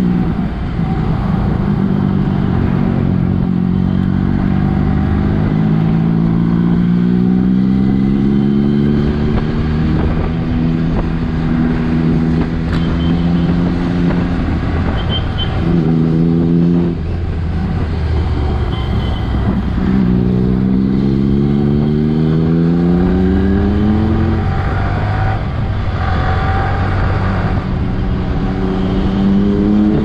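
Yamaha R15 V3's single-cylinder engine accelerating in long pulls, its pitch climbing steadily, then dropping back and climbing again several times as the rider shifts and rolls the throttle. Wind and road noise run underneath.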